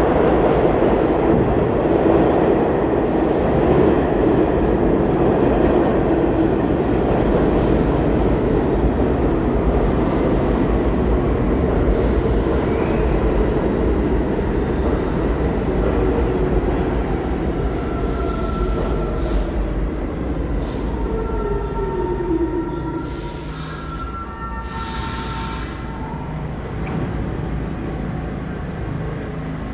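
R46 subway train pulling into the station and braking to a stop: a loud rumble of steel wheels on rail that slowly fades, with a falling pitch from the motors about two-thirds in. Thin squealing tones come and go in the last third as it stops, and a quieter steady hum remains once it is standing.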